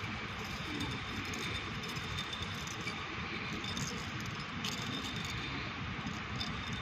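Steady low rumble and hiss of background noise in a large empty hall, with a few faint clicks.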